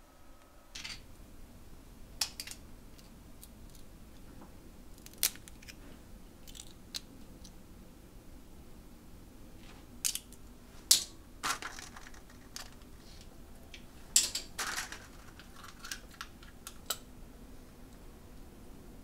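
Scattered light clicks and clacks of boiled cockle shells and a metal spoon as the cockles are twisted open and shelled, the loudest clacks a little past the middle.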